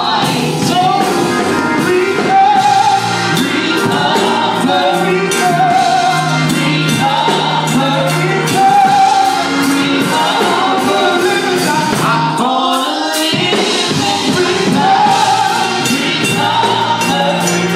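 A gospel group singing live: a male lead singer with a group of backing singers, over accompaniment with a steady beat.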